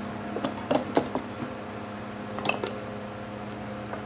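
Scattered light metallic clicks and knocks of hand tools on a Briggs & Stratton single-cylinder engine being taken apart, about six of them in the first three seconds, over a steady hum.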